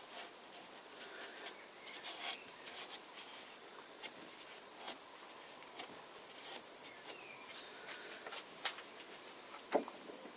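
Faint, scattered clicks and light knocks from handling, with no machine running.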